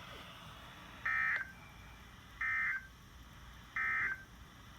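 Three short Emergency Alert System (SAME) digital data bursts from a NOAA Weather Radio broadcast, each a brief buzzy two-tone warble about a second and a half apart, over faint radio hiss. Their shortness and place right after the test script mark them as the end-of-message code that closes the weekly test.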